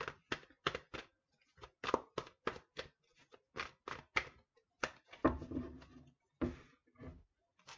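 Tarot cards being shuffled by hand: an irregular run of short sharp card slaps and taps, about two to three a second, with a few duller knocks past the middle as the deck is squared.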